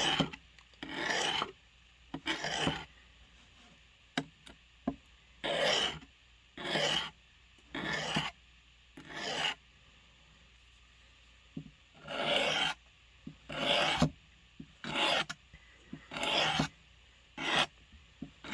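A blade being sharpened: slow, separate rasping strokes across an abrasive, each about half a second long, with a pause of a couple of seconds midway.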